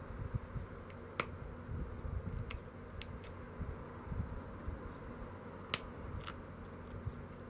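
Pressure flaking a stone biface with a pointed hand flaker: about five sharp clicks, each a flake popping off the edge, spaced a second or more apart, over a low rumble of handling.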